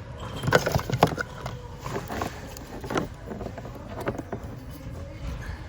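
Items being rummaged and handled in a bin of mixed goods: scattered knocks and clatter, the sharpest pair about half a second and a second in, with a few more spread through the rest.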